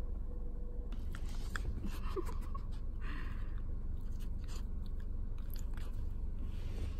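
Shiba Inu's mouth close to the microphone, licking at a hand, with short wet clicks and brief rustling bursts, over the steady low rumble of a car cabin.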